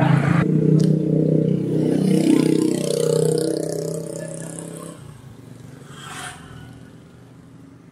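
A motor vehicle engine running close by, its pitch shifting, then fading away about four to five seconds in. A brief knock follows near the end.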